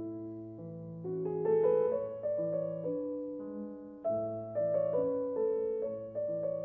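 Background piano music, a slow melody over sustained chords.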